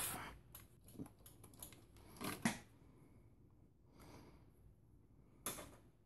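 Plastic power-supply cable connectors being pulled off a power supply tester and handled: a run of clicks and rattles, loudest about two and a half seconds in, then one sharp click near the end.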